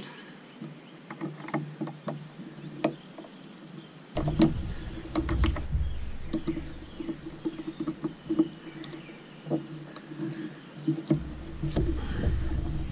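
Scattered metal clicks and taps of a folding hex-key set turning Allen screws in a stainless outrigger mount. A low rumble comes in about four seconds in, drops out, and returns near the end.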